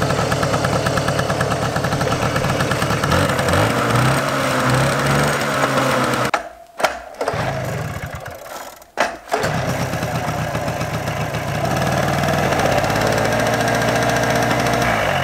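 Small moped engine running just after being pedal-started with the choke on. It revs up a few seconds in, breaks off briefly twice around the middle, then runs steadily again.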